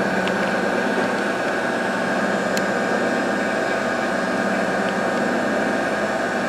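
Sunnen connecting-rod cap grinder running steadily, its motor and abrasive stone spinning free with no rod cap against the stone.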